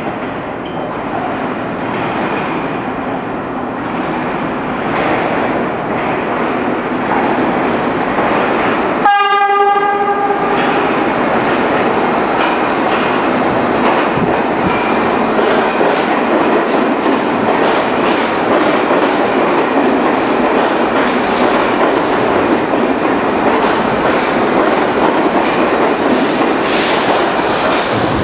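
R62A subway train approaching and running through the station, its noise building over the first several seconds. About nine seconds in, its horn sounds once for about a second. The rest is a steady loud rumble of the passing cars, with clicks of the wheels over rail joints.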